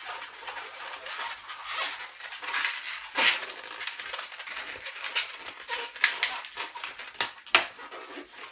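Inflated latex modelling balloon being twisted and worked by hand: rubbing and squeaking of the stretched rubber, with repeated sharp creaks as the twists lock, the loudest about three seconds in and a cluster near the end.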